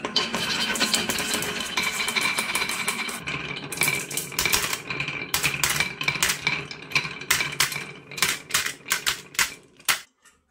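A stream of marbles rolling and clattering down a wooden slope with wavy grooves, then dropping one after another into a toy truck's bed. A dense rolling rattle gives way to separate sharp clicks that thin out and stop about ten seconds in.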